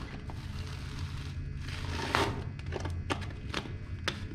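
An old sanding disc being handled after it has been peeled off a disc sander: a rasping, crinkling scrape about two seconds in, then a few light clicks and knocks over a low steady room hum.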